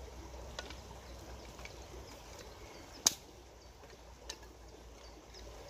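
Faint steady hiss with a few scattered light clicks, one sharp snap about three seconds in, and a softer knock about a second later.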